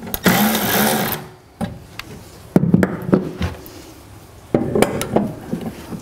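A cordless drill/driver runs in one short burst of about a second, driving a fastener on the bedside rack panel. Several sharp clunks and rattles of the metal panel and tools being handled follow.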